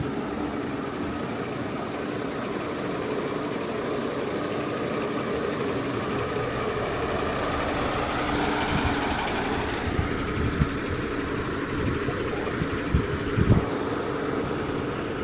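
A bus's diesel engine idling steadily, with a few thumps in the second half and a sharp click near the end.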